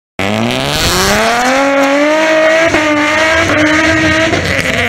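Nissan 350Z's V6 through a competition exhaust, revving hard as the car launches, the pitch climbing over about two seconds and then holding high, with tyres squealing.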